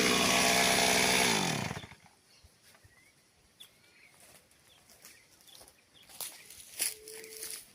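Chainsaw running at steady high speed, then winding down in pitch and cutting out just under two seconds in. Afterwards there are faint bird chirps and a few scattered rustles and clicks.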